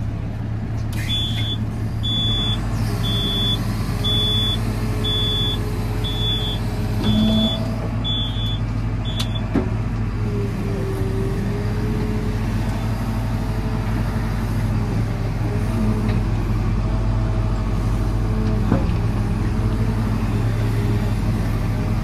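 JCB 4CX backhoe loader's diesel engine running steadily, heard from inside the cab, its pitch shifting under load as the backhoe digs. For the first nine seconds or so a high warning beeper sounds about once a second, nine beeps in all.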